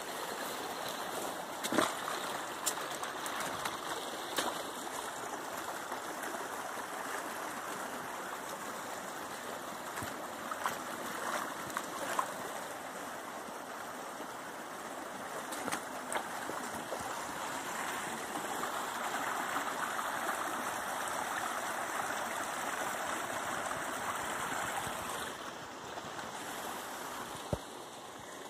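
Small forest creek running over rocks, a steady rush of water, with a few short sharp clicks and knocks scattered through it. The water grows a little louder past the middle and drops back a few seconds before the end.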